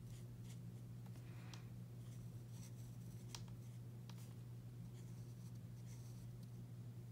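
Bullet tip of a Stampin' Blends alcohol marker rubbing and dabbing on cardstock as the lime rinds are coloured in: faint, scattered scratchy ticks over a steady low hum.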